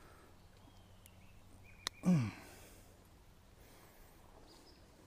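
A man's short grunt, falling in pitch and lasting about a third of a second, about two seconds in while he works the hook out of a small smallmouth bass. A single sharp click comes just before it.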